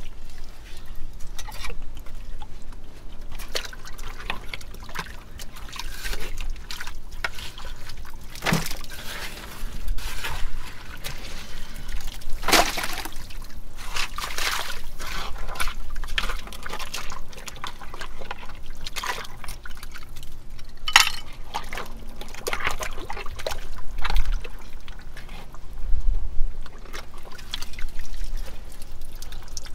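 Wet digging in a privy pit: water and muck pouring, dripping and sloshing, with irregular sharp knocks and scrapes as old bottles are worked out of the fill.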